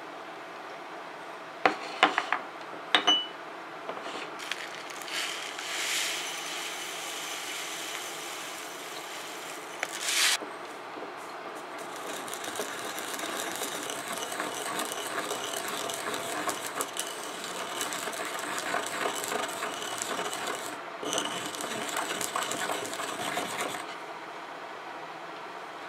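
Sesame seeds ground with a wooden pestle in a ridged ceramic suribachi: a steady gritty rasping from about eleven seconds in, stopping shortly before the end. Earlier there are a few sharp knocks and clatters, and a louder short scrape about ten seconds in.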